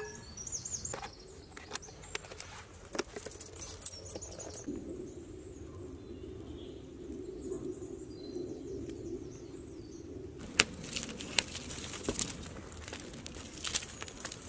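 Wood campfire crackling, with many sharp pops and snaps starting about ten seconds in. Before that there are a few faint clicks and a low steady rushing.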